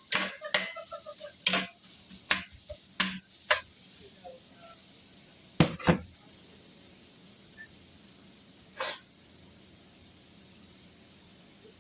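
Steady high sizzle of food frying in a pan, with a string of sharp clicks and knocks of kitchen utensils in the first six seconds and one more about nine seconds in.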